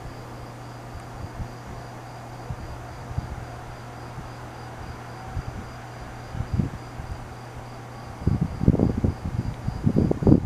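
Insects, likely crickets, chirping in a steady high pulsing trill over a steady low hum. From about eight seconds in, wind buffets the microphone in loud, irregular gusts.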